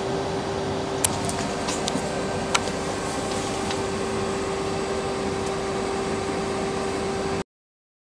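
A machine running with a steady hum and hiss, with a sharp click about a second in and another about two and a half seconds in; the sound cuts off abruptly near the end.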